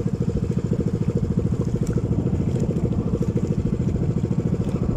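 Small engine of a motorized outrigger boat (bangka) running steadily under way, a fast, even beat.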